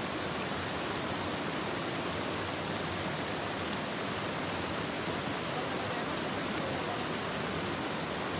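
Steady rush of river water pouring over rocks through a small cascade.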